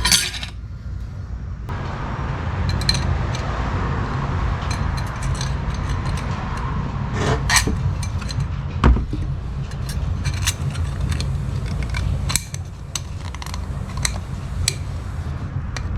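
Small metal transmission parts clinking, clicking and scraping as they are handled and fitted back together, over a steady low hum.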